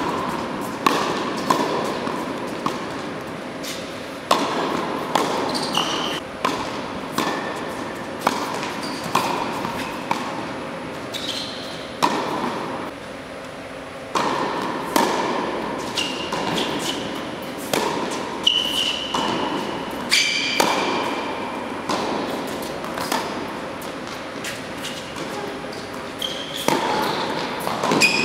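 Tennis rally on an indoor hard court: tennis balls struck by rackets and bouncing, about one hit a second, each echoing in the large hall. There are occasional short high squeaks of shoes on the court.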